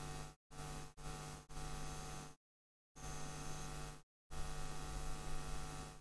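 Steady electrical mains hum with a faint hiss from the recording setup, cutting out to dead silence five times, the longest gap about half a second near the middle.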